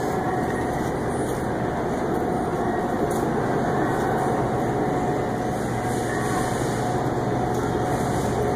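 Steady hum and rushing noise of a refrigerated meat display case's fans and refrigeration, with a faint steady tone running through it.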